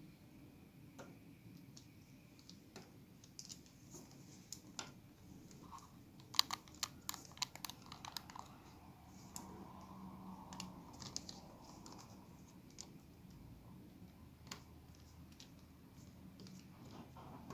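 Small hard plastic clicks and taps from the louvre pieces of a Volkswagen Passat B5 centre dashboard air vent being handled and fitted together by hand, with a quick run of clicks about six to eight seconds in.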